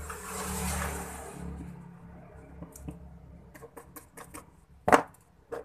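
Paint sponge being worked against a wall: a brief scrubbing rustle at the start, then scattered light taps as it dabs paint on. One sharp knock about five seconds in is the loudest sound.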